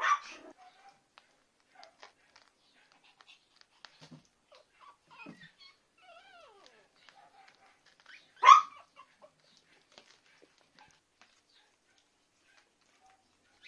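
Shih tzu puppies yapping: a high bark right at the start and a second sharp bark about eight and a half seconds in. Between the barks come soft whimpers and small squeaky calls, with faint scratching of paws on the pad.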